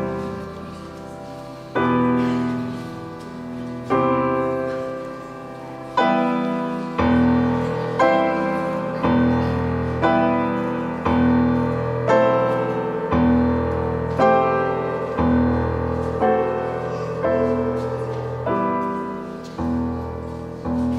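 Piano playing a slow instrumental introduction: sustained chords struck one every two seconds at first, then about once a second, each dying away before the next.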